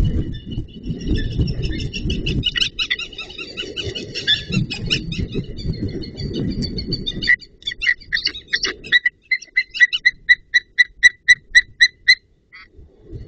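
White-tailed eagles calling on the nest: high, yelping calls that build into a loud, evenly spaced series of about three calls a second in the last few seconds. A low rumbling noise runs under the first half.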